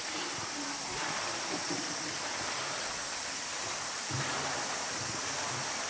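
Steady rush of moving water in a polar bear's pool enclosure.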